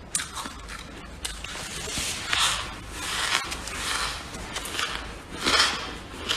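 Freezer frost crunching in a series of gritty bursts about once a second, with a few sharp clicks; the loudest crunches come about two and a half and five and a half seconds in.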